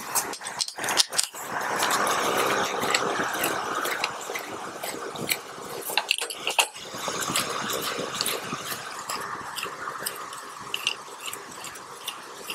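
Motorcycle fork parts being handled and fitted back together: many small metal clicks and clinks, with a rough scraping noise over a few seconds twice.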